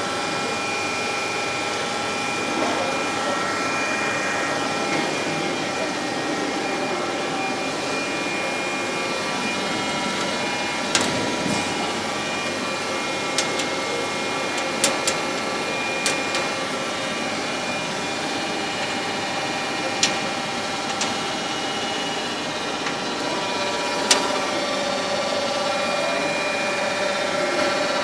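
Steady machinery hum with several held whining tones over hall background noise, broken by about half a dozen sharp clicks in the middle stretch.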